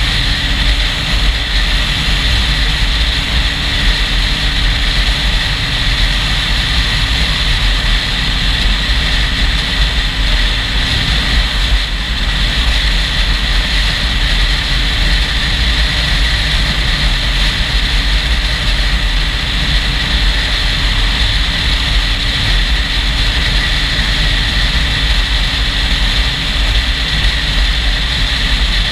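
Motorcycle riding at highway speed: steady wind rush on the camera's microphone over the engine's constant drone, whose note drops and fades near the end.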